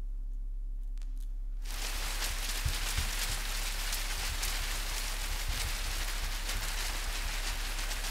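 Several sheets of newspaper crumpled and scrunched by hand at once: a dense crackling rustle that starts suddenly about two seconds in, over a low steady hum, with a couple of low thuds soon after it begins.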